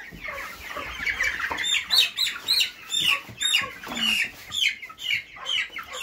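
Five-week-old meat chickens peeping and cheeping as they are caught and lifted by hand: many short, high calls that slide downward, several a second, overlapping.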